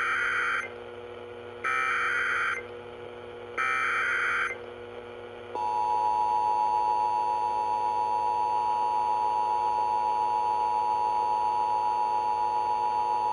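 Emergency Alert System tones: three short bursts of SAME header data, a buzzy warble about a second each and about two seconds apart. These are followed by the steady two-tone EAS attention signal, which starts about five seconds in and holds on.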